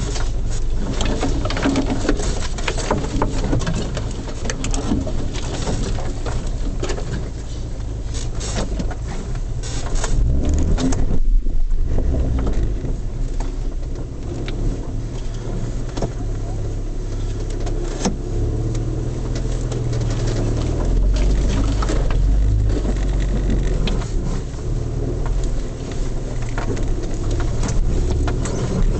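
Mercedes 230GE's four-cylinder petrol engine running at low speed off-road, heard from inside the cab, with frequent sharp knocks and rattles and branches brushing against the body. The engine note gets heavier from about the middle onward.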